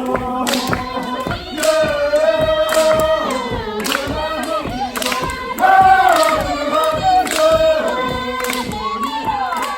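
Music: singing voices over a steady beat.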